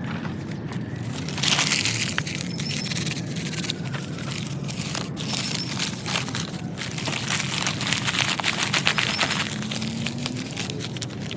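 Newspaper being crumpled and worked by hand into a tinder bundle: a continuous crinkling and crackling of paper with a few louder handfuls.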